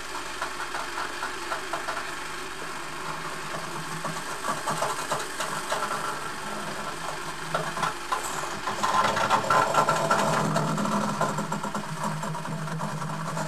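A steady low mechanical hum with scattered ticks and crackles, growing louder and busier from about nine seconds in.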